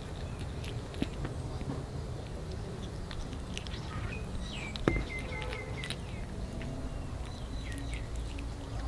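Kitten chewing dried fish: a string of small, irregular mouth clicks and crunches, with a sharper knock about halfway. Around the middle and again near the end come short, repeated high chirping notes.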